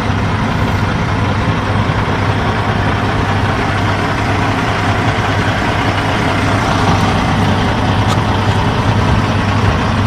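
A large truck's engine idling steadily: a constant low hum under an even rushing noise, with no change in speed.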